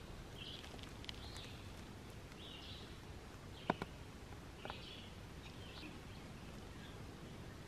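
Faint woodland ambience with a bird's short, high chirps repeating about once a second. Two sharp clicks come a little past the middle and another about a second later.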